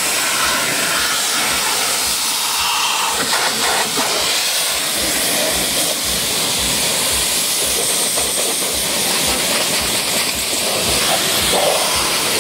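Pressure washer's high-pressure water jet spraying against a car's body panels and rear window: a steady hiss of water striking metal and glass.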